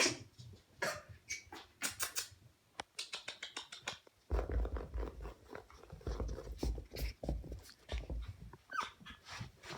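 Pomeranian puppy sounds: a run of short scratchy clicks and snuffles, low bumps from about four to seven and a half seconds in, and a short rising squeak near the end.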